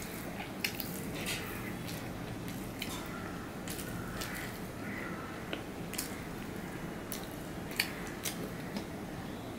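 Eating by hand: soft squishing of rice being mixed with the fingers on a plate, and chewing with scattered light clicks and mouth smacks, over a steady low background hum.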